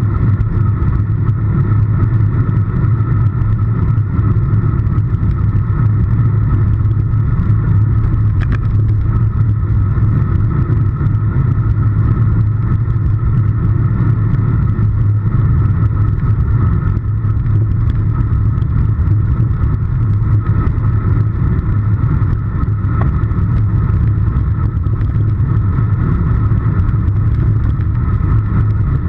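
Steady, loud rumble of wind and road noise picked up by a camera on the handlebars of a road bike riding at speed in a group paceline.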